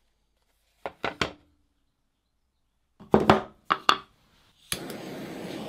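A few short wooden knocks, then a cluster of louder knocks as a wooden piece is set down on a firebrick. About three-quarters of the way through, a handheld butane torch clicks alight and burns with a steady hiss.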